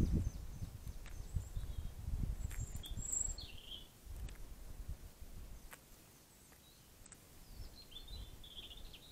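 Eurasian jay feeding at a wooden bird feeder close to the microphone: irregular low thuds and knocks from its pecking and shuffling on the feeder, heaviest in the first few seconds and easing off in the middle. A few short high bird chirps come in the background about two to three seconds in and again near the end.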